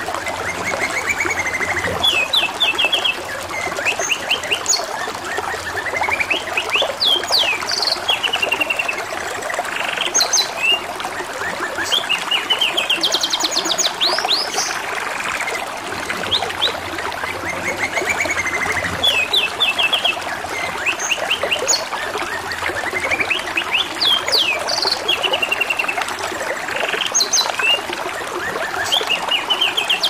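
Canary singing phrase after phrase of fast repeated notes and quick upward-sweeping whistles, over a steady trickle of running water.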